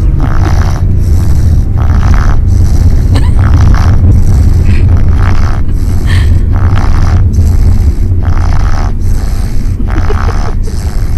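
Congested snoring, one noisy breath about every one and a half seconds, from a sleeper stuffed up with a cold. It comes over a steady low rumble.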